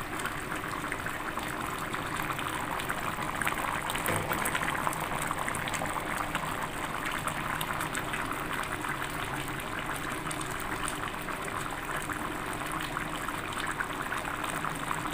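Crabs and vegetables boiling in coconut milk in a pot: a steady, dense bubbling and popping.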